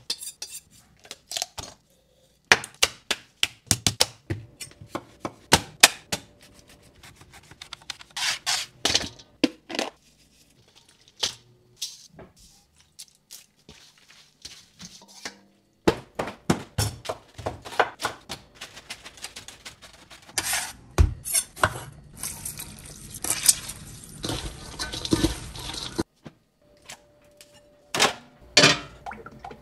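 Kitchen food-prep sounds in quick succession: a run of sharp knocks, taps and clinks of utensils and dishes, with a stretch of steady noise lasting about five seconds two-thirds of the way through.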